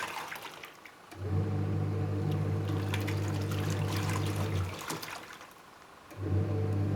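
Panasonic NA-W77FCW1 twin-tub washing machine in its wash cycle: the wash motor hums and the pulsator churns and splashes the water and clothes. The motor stops twice, for about a second and a half each time, at the start and again just before five seconds, then starts up again. These pauses are where the pulsator reverses direction to turn the laundry over.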